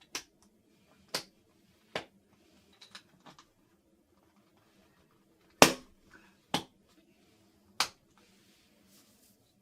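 Scattered sharp clicks and knocks from an inline skate's plastic boot and its strap buckles being handled while the skate is put on and strapped up, about eight over several seconds with the loudest a little past halfway. A faint steady low hum runs underneath.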